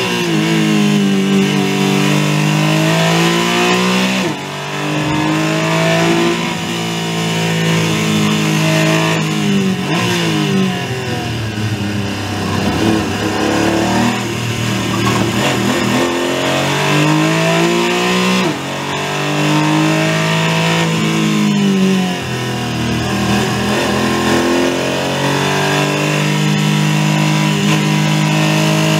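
Porsche 718 Cayman GT4 Clubsport's naturally aspirated flat-six, heard from inside the cockpit, working hard through a racing lap. Its pitch climbs steeply and drops sharply at each upshift, several times over, with rougher stretches of braking and downshifting between.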